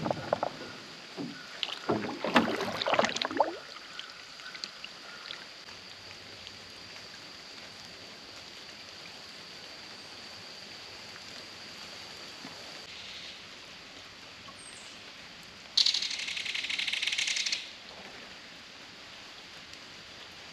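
A small boat being paddled on calm water: splashes and knocks of the paddle and hull for the first few seconds, then quiet water ambience with a faint steady high tone. About sixteen seconds in comes a brief high rasping sound lasting about two seconds.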